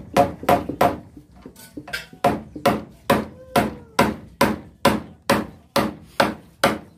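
Claw hammer nailing a wooden plank: steady, evenly spaced blows, about two to three a second, with a short pause about a second in.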